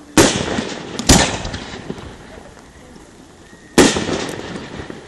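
Aerial firework shells bursting: three loud bangs, the first two about a second apart and the third near the end, each followed by a fading echo.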